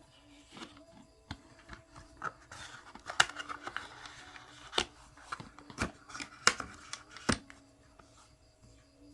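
Small objects such as nail tools and gel containers being handled on a work surface: a run of sharp clicks and taps with light rustling, loudest in the middle.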